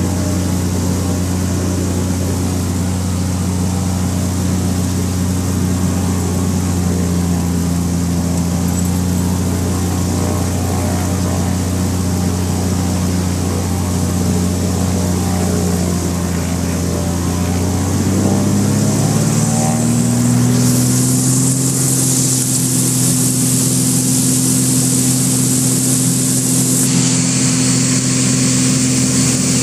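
Light single-engine propeller aircraft's piston engine heard from inside the cockpit, running steadily at low power. About two-thirds of the way through it opens up to takeoff power, its pitch rising and then holding steady and higher, and a steady hiss joins in soon after.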